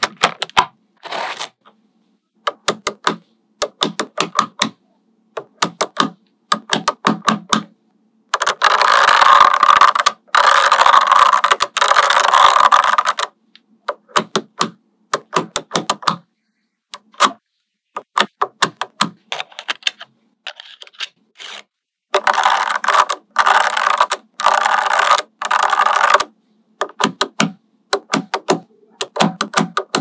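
Small magnetic balls clicking and snapping together in quick clusters of sharp clicks, with two longer stretches of dense rattling as many balls rattle against each other. The clusters are separated by dead-silent gaps.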